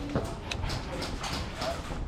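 Footsteps on hard ground: a few irregular steps.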